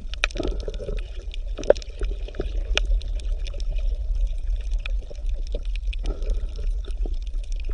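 Bubbling, gurgling water with an irregular patter of small pops and splashes over a steady low hum, as in an aquarium with an air or filter outflow.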